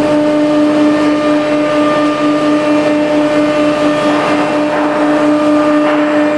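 CNC router spindle running at a steady high speed, a constant whine over the noisy rush of the tool cutting MDF.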